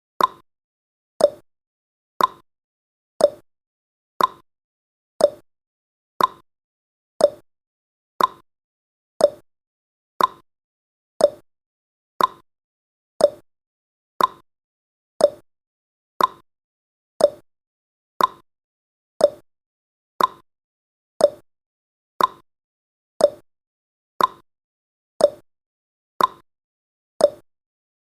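Countdown timer's ticking sound effect: one short, sharp tick every second, steady and even.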